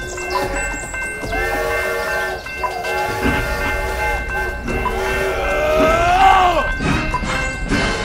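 A steam-train whistle blowing several long blasts of several pitches at once, the last one bending in pitch, over background music.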